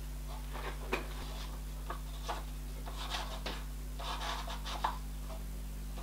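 Steady low hum of the milling machine, with irregular light rustles and scrapes of a sheet of paper held against the end mill to touch the cutter off on the steel workpiece.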